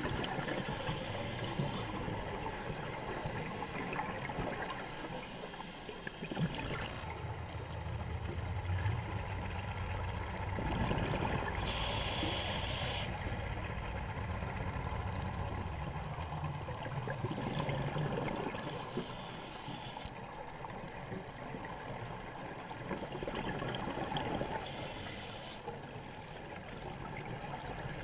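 Scuba diver breathing through a regulator underwater: a hiss on each inhale and a gurgling rush of exhaled bubbles, repeating every few seconds.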